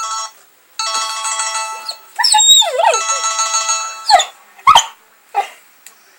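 Cell phone ringtone chiming while a boxer puppy cries along, his voice wavering up and down over the tune, then a few short separate cries after the ringtone stops.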